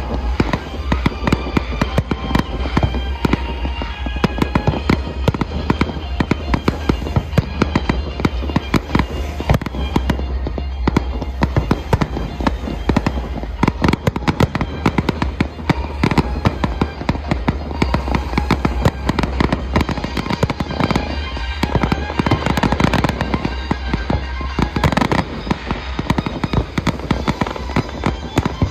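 Aerial fireworks display: a dense, continuous run of shell bursts and crackling, with music playing underneath.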